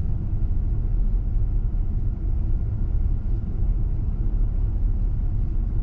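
Steady low rumble inside a car's cabin while the car sits idling at a red light.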